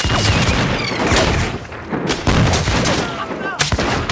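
Flintlock musket gunfire in an uneven run of about half a dozen sharp shots over four seconds.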